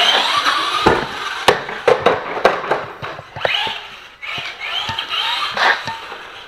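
Traxxas Slash RC truck's 12-turn brushed electric motor whining, its pitch rising and falling as the throttle is worked, among sharp knocks and clatter from the truck bouncing over the ground, the loudest thump about a second in.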